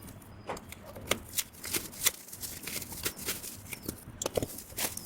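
An irregular series of light, sharp clicks and taps from objects being handled.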